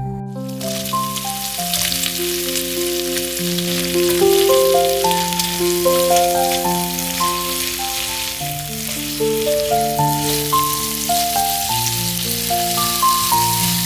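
Food sizzling as it fries in a hot pan, the hiss starting suddenly about half a second in, over background music of melodic notes.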